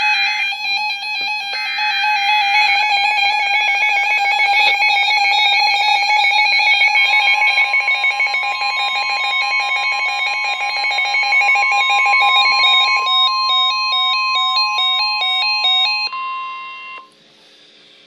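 Several weather alert radios sounding their alarms at once: overlapping, repeating electronic beep patterns at different pitches. About seven seconds in, a steady single tone joins them, the weather radio warning alert tone that comes before a warning message. Most of the sound stops about a second before the end, followed by a short click.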